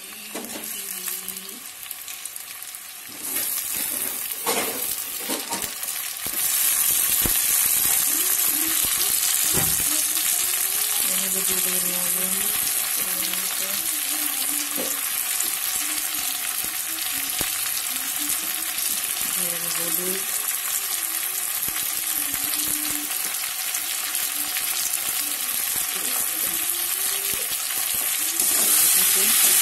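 Chopped tomatoes, onions and green chillies sizzling in hot oil in a steel wok, stirred with a metal spatula. The sizzle jumps louder about three and six seconds in, then holds steady.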